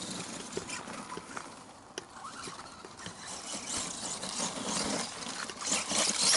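A 1/10 ECX Ruckus RC monster truck running over frozen, rock-hard dirt: a crackle of tyres and grit with scattered clicks, growing louder near the end.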